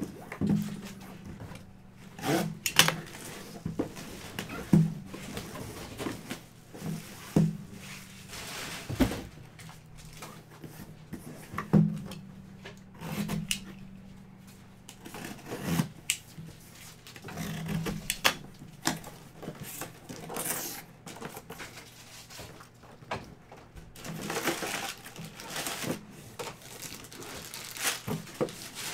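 A shrink-wrapped cardboard box being unwrapped and opened by hand: plastic wrap tearing and crinkling, cardboard flaps rustling, and scattered knocks of the box against the table.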